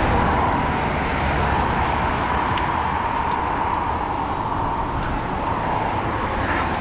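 Steady rush of wind and road noise on a helmet-mounted action camera's microphone while riding a bicycle at speed, with a faint steady whine underneath.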